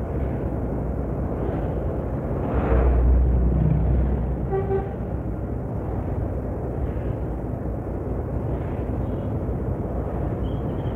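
Steady low rumble of road traffic and vehicle engines, swelling louder around three seconds in, with a short horn toot about four and a half seconds in.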